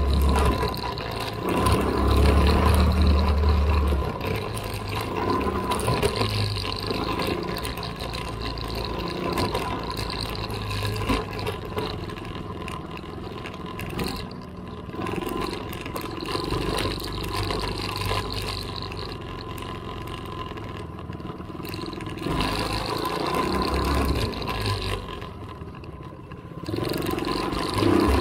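Small off-road vehicle engine running as it rides along a dirt trail, its level rising and falling through the ride.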